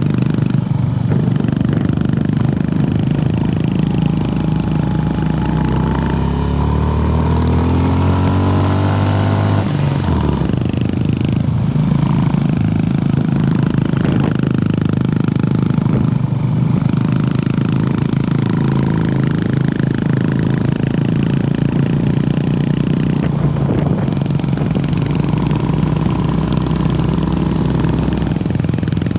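Honda CB350RS's air-cooled single-cylinder engine on the move. It rises in pitch for about six seconds, drops sharply about ten seconds in as at an upshift, then runs at a steady pace with a few brief dips in revs.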